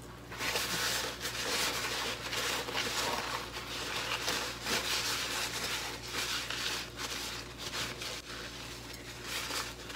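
Paper towel rustling and rubbing in irregular strokes as it wipes a salted whole sea bream dry on a plate, softer near the end.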